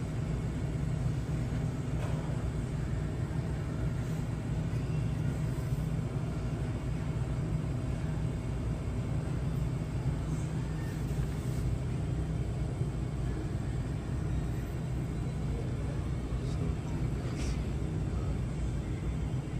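Supermarket room tone: a steady low rumble, with a few faint ticks about halfway through and near the end.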